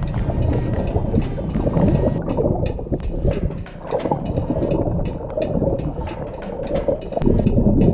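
Muffled underwater churning and gurgling picked up by a submerged camera: exhaled air bubbling from hookah divers' regulators, with scattered sharp clicks.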